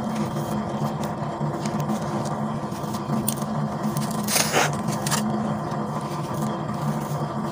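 Clumps of dry sandy soil and gravel crushed and crumbled in bare hands: a gritty rustle with small clicks of falling grains, and a louder brief scrape about four and a half seconds in, over a steady low hum.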